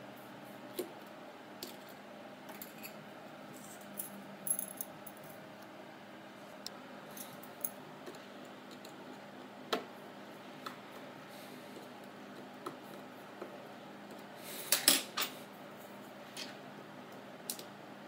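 Light metallic clicks and ticks of a precision screwdriver working the tiny screws out of an iPod Touch 4th generation's metal middle plate, scattered and irregular, with a louder cluster of clinks near the end.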